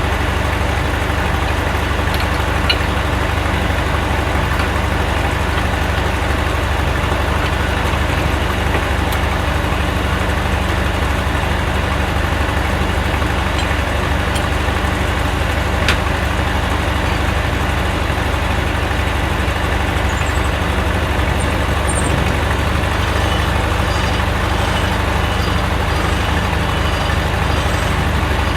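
Engine running steadily at an even speed, likely the power unit driving the Corley sawmill.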